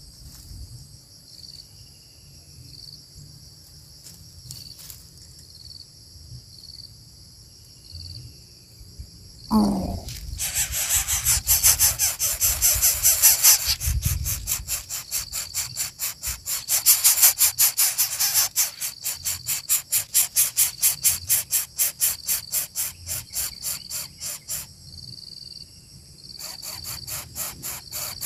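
A singing insect close by. First a steady high-pitched whine, then, about a third of the way in, a loud rapid pulsing chirp that keeps going, breaks off briefly near the end and starts again.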